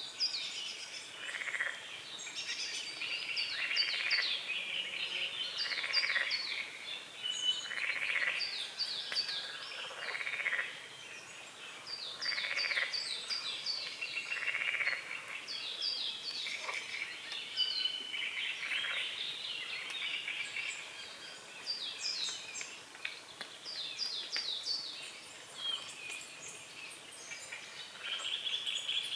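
Frogs croaking in pulsed calls about every two seconds through the first half, under songbirds singing quick repeated phrases throughout.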